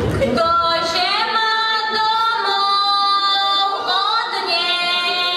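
Women singing a folk song, with long held notes that slide between pitches.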